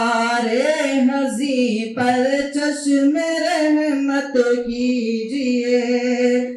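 A single voice singing a manqabat, a devotional poem in praise of a Sufi saint, in long held notes with wavering, ornamented pitch and a brief break about two seconds in.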